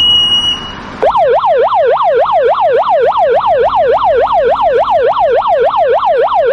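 A brief high steady beep, then, about a second in, a police car siren starts yelping: a rapid rising and falling wail, about four sweeps a second, that carries on.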